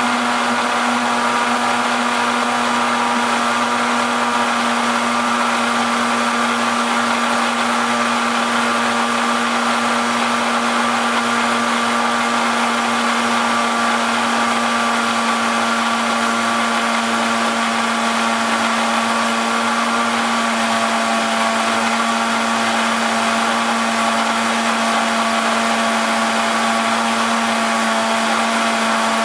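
Countertop juice blender's motor running steadily with an even hum, mixing egg yolks as oil is drizzled in to emulsify them into mayonnaise.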